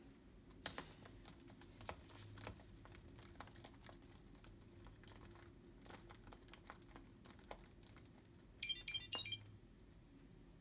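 Typing on a laptop keyboard: light key clicks in quick, uneven runs. About nine seconds in, a short electronic chime of rapid high beeps sounds for about a second.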